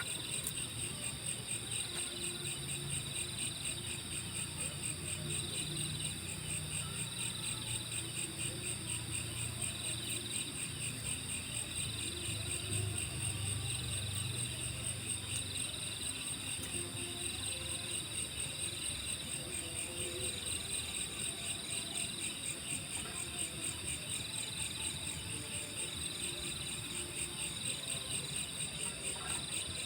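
Night insects such as crickets trilling steadily, in layers. One continuous high, rapidly pulsed trill runs under a lower chirping chorus that swells and fades at a regular beat.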